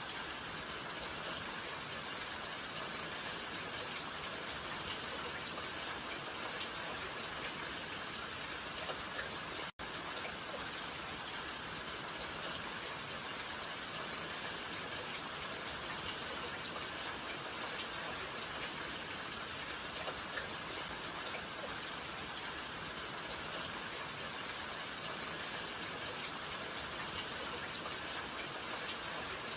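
Steady rain falling, an even patter of many drops striking surfaces. The sound cuts out for an instant about ten seconds in.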